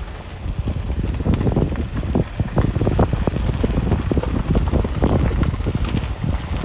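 Wind blowing across the microphone: a loud, uneven rumbling noise with irregular gusts and crackles.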